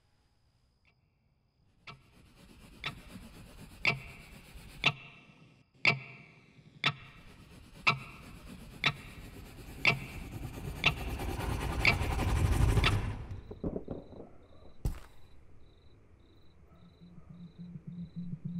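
Wristwatch ticking loudly, about once a second, over a rising swell of noise that cuts off suddenly about thirteen seconds in. One more sharp tick follows about two seconds later, and a low pulsing tone starts near the end.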